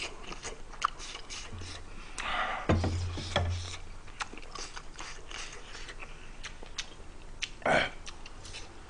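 A person eating close to a microphone: chewing and small mouth clicks as a scatter of quick ticks, with a couple of louder bursts about two and a half seconds in and near the end.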